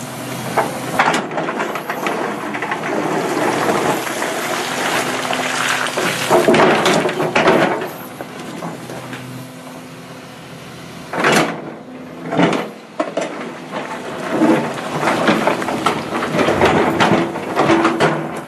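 Tracked hydraulic excavator running in a steel barge hold, its bucket scraping through and dropping loose rock with repeated clattering knocks. The loudest knocks come about a third of the way in and twice near the middle.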